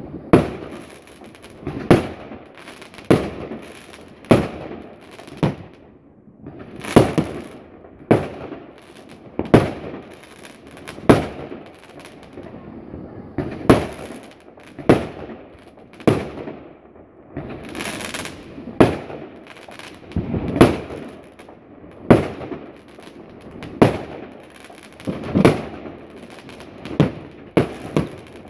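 Aerial fireworks firing shot after shot at a steady pace, a sharp bang roughly every second, with a short hissing stretch about two thirds of the way through.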